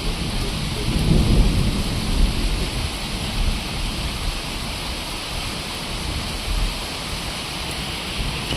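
Steady rain falling, with a low rumble that swells about a second in and eases off over the next couple of seconds.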